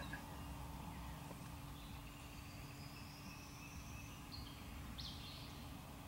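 Quiet woodland ambience with distant songbirds: thin, high whistled notes, one long drawn-out note in the middle and a short call near the end, over a faint steady hum.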